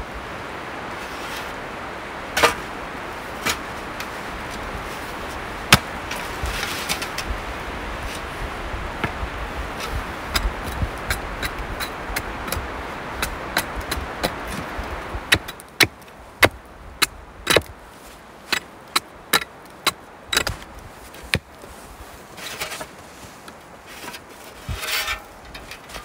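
Wind and falling snow hissing, with a few scattered sharp knocks. About halfway the hiss drops and sharp knocks come about once a second, with a couple of brief scrapes near the end: an aluminium snow shovel striking and scraping snow and a log.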